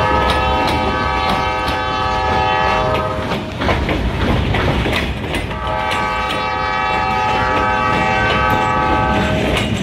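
Freight train's hopper cars rolling past, wheels clacking over the rail joints, with two long blasts of a locomotive horn: the first ending about three seconds in, the second starting past halfway and stopping just before the end.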